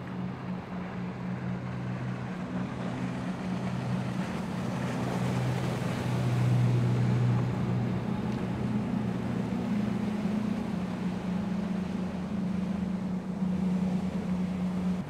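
Outboard engines of a center-console fishing boat running at speed, a steady drone over rushing water and wind noise. It swells to its loudest about six to seven seconds in.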